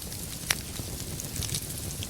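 Wood fire crackling: a steady low rumble of burning logs with scattered small pops, and one loud, sharp crack about half a second in.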